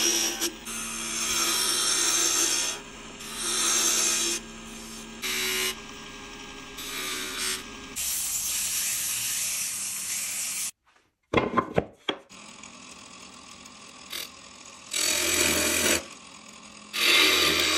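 Wood lathe turning a stool leg: a turning tool cutting shavings in repeated hissing bursts, then a steadier stretch of sandpaper against the spinning wood. After a short break with a few clicks, a motor runs and the leg is cut against a taper jig in two loud bursts of about a second each near the end.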